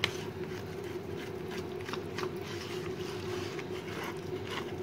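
Hands kneading oily dough in a bowl as oil and ghee are worked into it: faint, soft squishing and rubbing with a few light knocks, over a steady hum.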